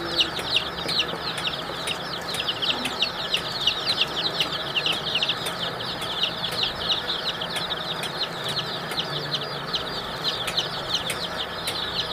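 A large flock of domestic chicken chicks peeping continuously: many short, high cheeps, each sliding down in pitch, overlapping into a dense chorus.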